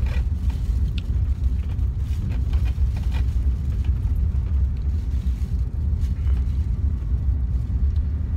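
Steady low rumble of a car heard from inside the cabin, with a few faint clicks in the first few seconds.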